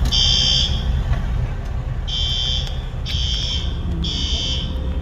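Building fire alarm horns sounding the temporal-three evacuation pattern: high-pitched buzzing blasts of about half a second each, in groups of three with a pause of about a second and a half between groups. A steady low rumble runs beneath.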